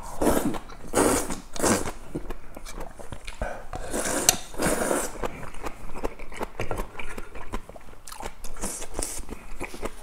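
A person slurping hand-cut kalguksu noodles in a few loud pulls in the first two seconds, and again around four to five seconds. Between and after the slurps comes close-up wet chewing with many quick clicks.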